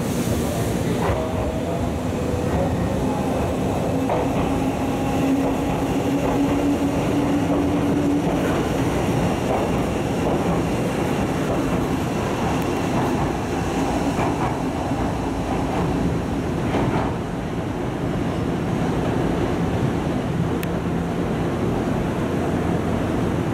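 Nankai Kōya limited express electric train pulling out of the station and running past, with a motor hum rising in pitch as it accelerates and wheels clicking over the rail joints.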